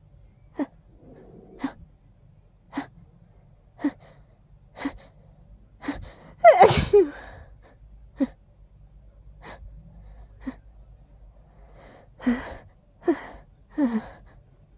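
A person sneezing over and over, breathy sneezes without much voice. There are short sharp bursts about once a second, the loudest and longest sneeze about six and a half seconds in, and three in quick succession near the end.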